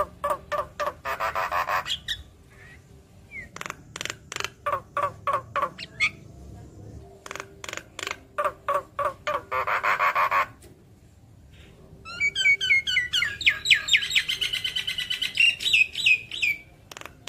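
Javan myna (jalak kebo) calling: three runs of rapid, harsh clicking notes, then a fast chattering run of high rising whistles near the end.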